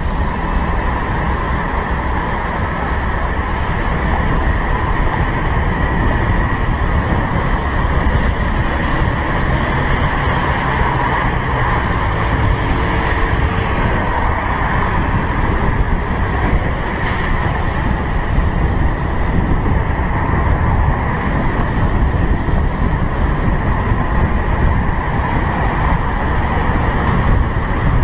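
Steady rush of wind and road noise on a helmet-mounted camera riding a moving motor scooter, with the scooter's engine running underneath and passing traffic.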